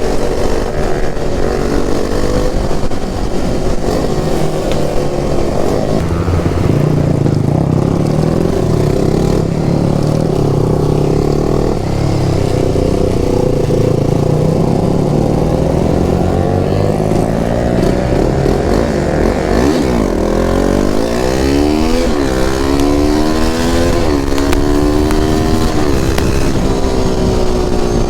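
Sport motorcycle engine running under way. The revs rise and drop back several times in quick succession near the end.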